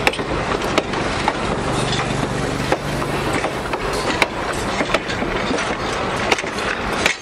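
Passenger coaches rolling past at close range: a steady rumble of steel wheels on rail, broken by frequent irregular clicks and knocks.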